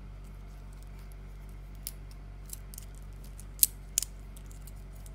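Sharp metallic clicks of a space black stainless steel Apple Watch link bracelet being handled in the fingers. A few light clicks come first, then two loud ones a little past the middle, over a steady low hum.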